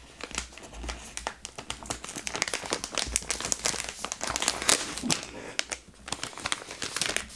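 Soft plastic packet of wet wipes crinkling as fingers fumble at a new, still-sealed pack, hunting for the opening tab: a dense run of small crackles with a brief lull about six seconds in.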